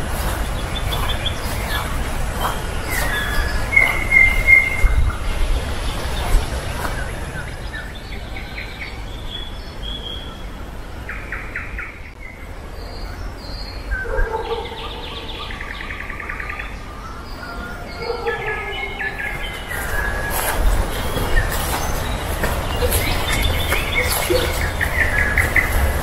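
Songbirds chirping and singing, with short calls scattered throughout, over a steady low rumble. The sound is quieter through the middle.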